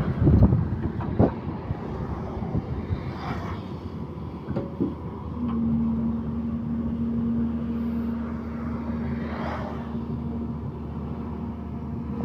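Excavator's diesel engine running, with a few sharp knocks in the first second or so. About five and a half seconds in, a steady droning tone joins the engine and holds.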